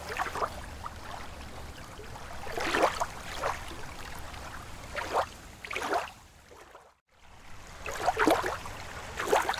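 Rippling water: irregular small splashes and gurgles over a steady wash. It fades almost to silence about seven seconds in, then picks up again.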